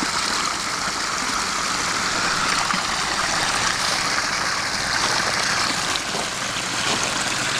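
Water pumped by a 2,700-gallon-per-hour pump pouring down a rock-lined garden stream and small waterfalls into a pond: a steady rush of running water.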